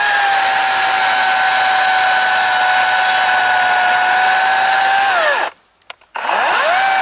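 Kobalt cordless brushless chainsaw running with a steady electric whine, cutting a limb. Released about five seconds in, it winds down and stops, then is triggered again and spins back up near the end.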